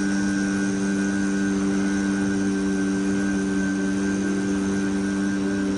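A steady drone of several held low tones, unchanging in pitch.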